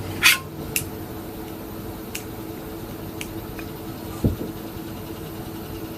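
Small sharp metal clicks and taps from handling a Craftsman offset-handle ratchet and hand tools during reassembly, right after its snap ring has been seated, with a soft thump about four seconds in. A steady low hum runs underneath.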